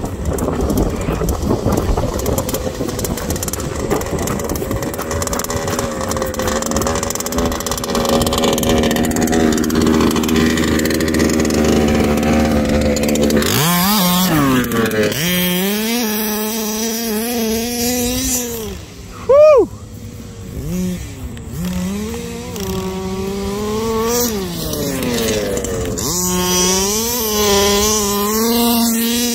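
Small two-stroke petrol engine of a 1/5-scale RC buggy running. It is a steady drone for the first half, then closer, revving up and down with throttle blips, with one short loud rev about two-thirds of the way through and high revs near the end.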